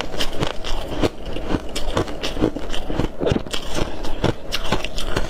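Biting and chewing a lump of soft freezer frost: packed ice crystals crunching in irregular sharp crunches, several a second.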